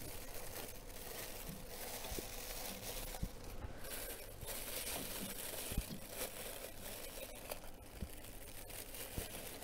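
Thin plastic thermal-transfer ribbon film crinkling and rustling as it is handled and threaded through a label printer, with a few light knocks of the printer's parts.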